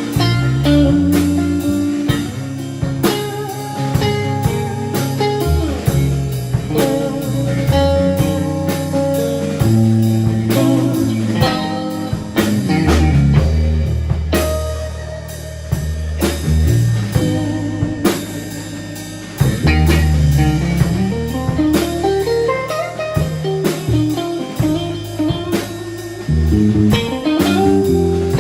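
Live blues-rock trio playing an instrumental: electric guitar lead over bass guitar and drum kit. A long rising guitar slide comes about twenty seconds in.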